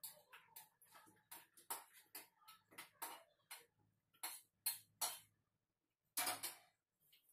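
Spatula scraping and clinking against a metal kadai as cooked curry is scraped out into a steel bowl: a run of short, uneven scrapes and taps, two or three a second. Near the end comes a louder clatter as the kadai is set back on the gas stove.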